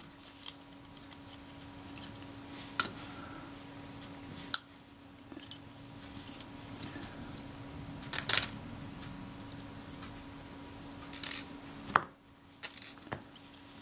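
Scattered small metallic clicks and taps of steel tweezers and tiny metal parts against a Synchro-Compur leaf shutter as it is dismantled, the loudest about two-thirds of the way through, over a faint steady hum.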